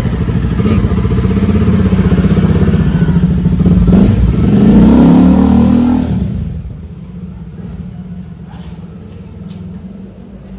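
A motor vehicle's engine running close by, revving with a rising pitch about four to six seconds in, then fading away, which leaves a much quieter background with a few faint clicks.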